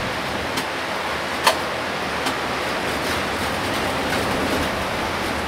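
Inside a Hino Selega HD coach driving through heavy rain: a steady hiss of rain and tyres on the wet road. A sharp click comes about a second and a half in, with a couple of fainter ticks.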